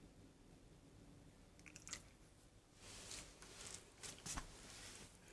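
Faint chewing and crunching with a few scattered clicks, a dog eating or gnawing.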